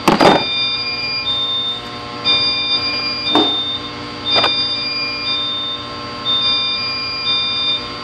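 Fire alarm system beeping a trouble signal, high electronic beeps repeating about once a second in a steady on-off pattern: the Notifier 411UDAC dialer, which keeps beeping until acknowledged at the panel. A steady electrical hum runs underneath. There is a sharp knock right at the start and two lighter knocks about three and a half and four and a half seconds in.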